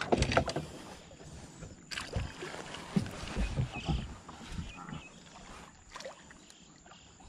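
A hooked black bass splashing and thrashing at the surface beside a wooden boat, loudest at the start, with more irregular splashes and knocks about two to four seconds in before it settles.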